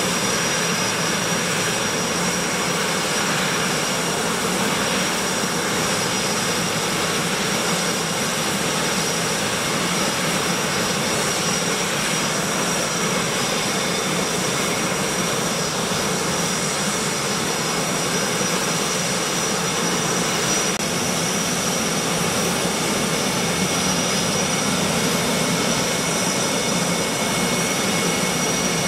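Jet engine idling steadily: an even rush of noise with a constant high-pitched whine over it.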